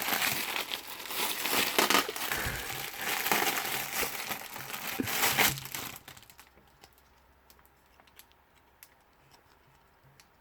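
Packaging crinkling and rustling as it is handled and pulled open, with sharp crackles; it stops abruptly about six seconds in, leaving only a few faint ticks.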